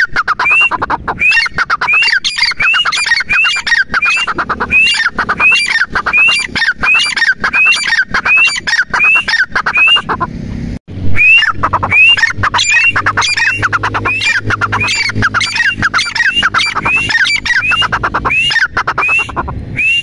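Grey francolin (teetar) calling: loud, high-pitched rising notes repeated about twice a second, with a short break about halfway through before the calling resumes.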